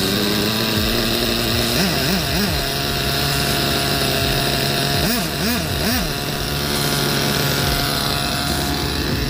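Small nitro engine of a VRX2 1/8-scale RC buggy, started from the transmitter, running steadily at idle. It is revved in two sets of three quick throttle blips, about two seconds in and again around five to six seconds.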